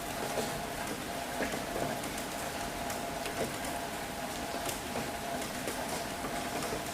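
Steady rain falling, with scattered drips and splashes over a faint steady hum.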